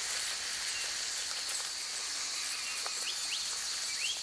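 Summer bush ambience: a steady high-pitched insect drone over an even hiss, with a few short rising chirps scattered through it.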